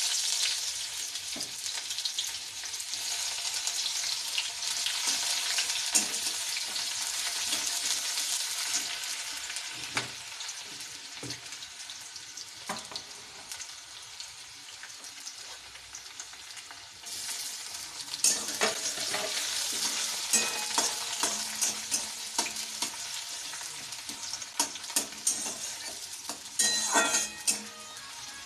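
Onion sizzling as it fries in hot oil with black pepper and garam masala, with a spatula scraping and tapping the pan as it is stirred. The sizzle starts loud, eases off, then flares up again about two-thirds of the way through, with frequent sharp taps near the end.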